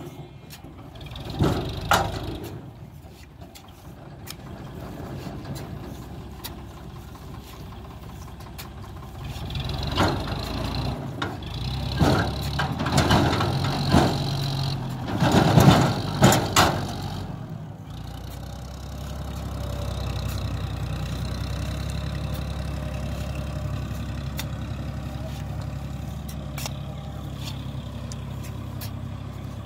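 Sonalika DI 750 tractor's diesel engine running steadily. In the middle stretch comes a run of sharp knocks and scrapes from a hand hoe pulling sand at the back of the tipping trailer. After a brief break, an even engine hum carries on to the end.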